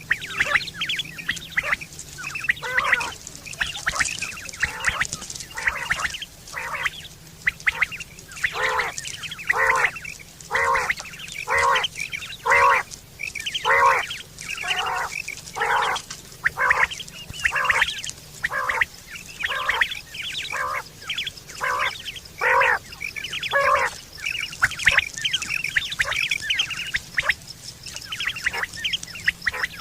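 Quail calling over and over in short repeated notes, about one to two a second. This is the kind of call used to lure quail for hunting and at mating time.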